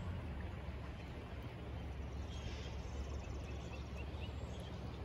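Outdoor riverbank ambience: a steady low wind rumble on the microphone, with a small bird giving a run of five short rising chirps about three seconds in.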